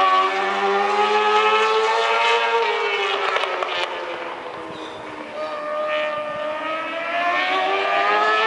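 Racing motorcycle engine at high revs, heard across the circuit. Around the middle it fades and drops in pitch, then comes back louder, its pitch climbing steadily as the bike accelerates.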